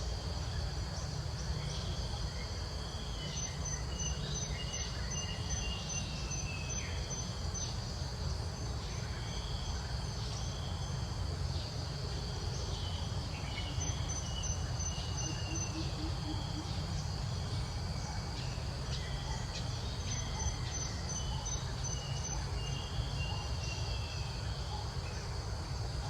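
Outdoor ambience of insects chirping: a steady high drone with a faster pulsing chirp over it, and short falling calls now and then, over a constant low rumble.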